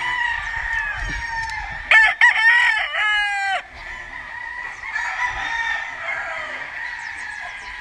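A gamefowl rooster crows loudly once, about two seconds in, for about a second and a half, the call dropping in pitch at the end. Fainter crowing and clucking from other roosters carries on before and after it.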